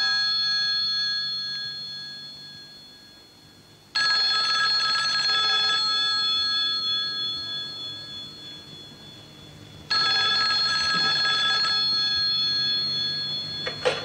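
Bell of a black rotary-dial desk telephone ringing: a ring dying away at the start, then two more rings of about two seconds each, around four and ten seconds in, every ring fading out slowly. Near the end the handset is lifted with a couple of clicks.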